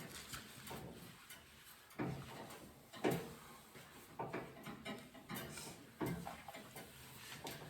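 Cloth rags being rubbed over a truck door panel to wipe it down with wax and grease remover, with a short scuff about once a second.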